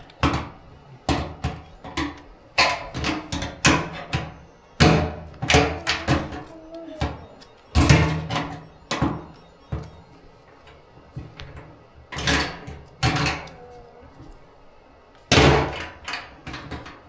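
Irregular knocks and clanks of hand work on a car, loud and uneven, with short gaps between them.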